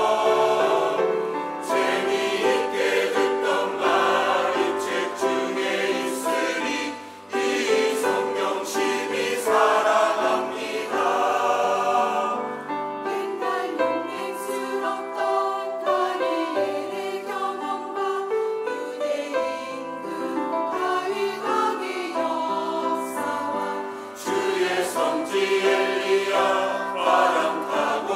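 Mixed church choir singing a Korean hymn anthem in harmony, with a brief pause between phrases about seven seconds in.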